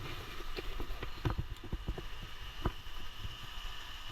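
Steady faint rush of a distant waterfall, with a scatter of light knocks and clicks.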